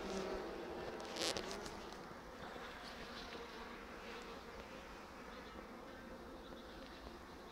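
Honeybees buzzing steadily in an opened nucleus hive, a low even hum. A brief scratchy noise sounds about a second in.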